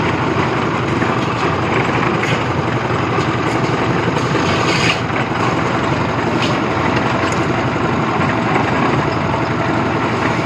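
Engine of a concrete mixer machine running steadily at a constant speed.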